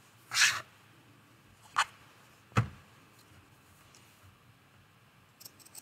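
Pinking shears cutting through fabric: a few separate snips with sharp clicks, the loudest about two and a half seconds in, then faint small ticks near the end.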